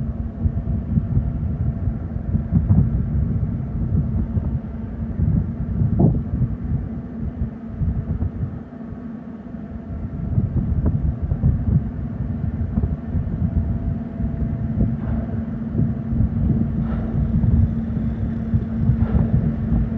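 Wind rumbling on the microphone over a low, steady hum from the approaching lake freighter's EMD diesel engines.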